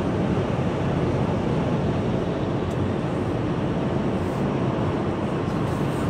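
Steady road noise inside a car cabin at motorway speed: a constant rumble of tyres on the road and engine drone.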